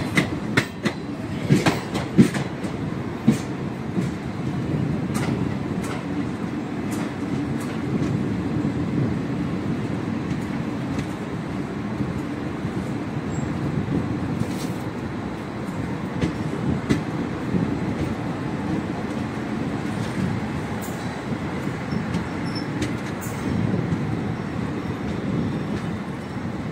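Passenger train running on the rails, heard from its open doorway: a steady low rumble of wheels on track, with a run of sharp clacks over rail joints in the first few seconds and scattered clicks after.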